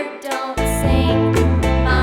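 Upbeat children's background music with plucked strings and a steady beat; the bass comes in about half a second in.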